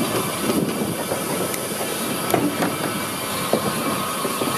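No. 2 steam locomotive running slowly, heard from just behind its cab: a steady mix of steam hiss and rolling rail rattle, with a faint steady whine and a few light knocks.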